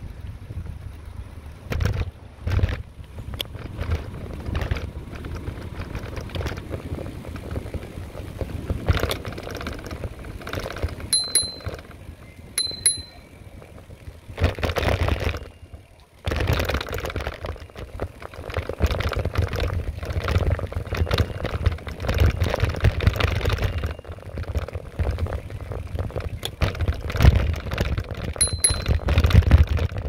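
Riding a bicycle along a paved path: wind buffeting the microphone over tyre rumble, with clicks and rattles over bumps. Three short, high pings sound, two close together about a third of the way in and one near the end.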